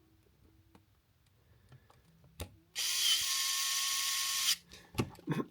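Small electric screwdriver running for about two seconds, driving a beadlock screw into an aluminium RC crawler wheel, then a few light clicks.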